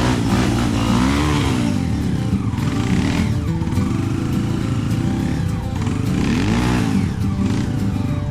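Trail motorcycle engine running under load, its pitch rising and falling several times as the throttle is opened and closed.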